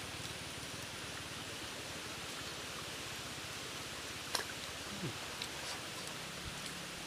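Steady hiss of a shallow stream running over rock, with a couple of small sharp clicks about four and five seconds in as shell is picked off a cooked egg.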